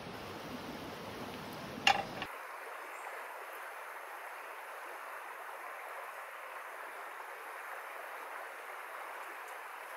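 Steady rush of flowing stream water, with one sharp click about two seconds in.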